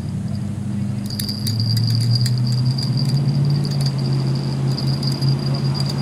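Spinning reel being wound against a bent rod, with light metallic clicking from about a second in. Underneath are a steady high insect drone and a low steady hum that sets in and grows louder.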